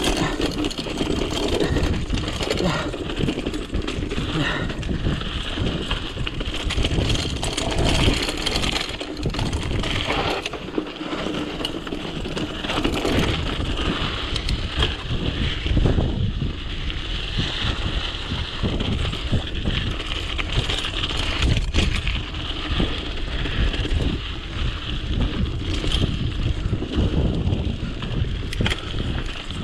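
Btwin Rockrider 540S mountain bike ridden down a forest trail: tyres on dirt, with the bike rattling and knocking over bumps all the way, and wind noise on the microphone.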